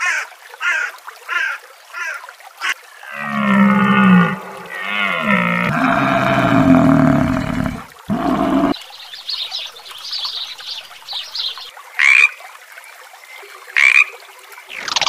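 A sequence of animal calls: about five short, high bird calls evenly spaced, then low, drawn-out lowing calls from a herd of African buffalo that bend in pitch, then a frog's many faint high chirps broken by two loud croaks near the end.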